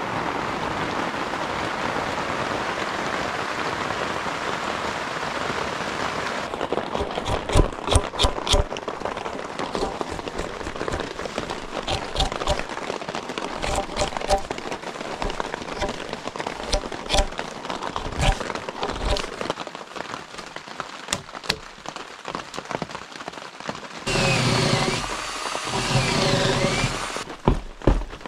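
Rain falling: a steady hiss for about six seconds, then an abrupt change to scattered drips and knocks. A louder noisy stretch of about three seconds comes near the end.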